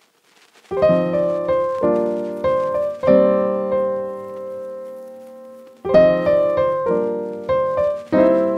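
Piano music: after a brief silence, a phrase of struck notes and chords that ring and fade, a long held chord, then the phrase starts again.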